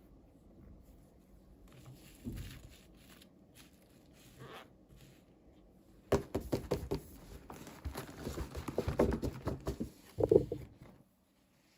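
Hands handling and opening small toy packaging, heard close up: a few faint rustles, then from about six seconds in a busy run of crinkling, tapping and clicking, with one louder knock near the end.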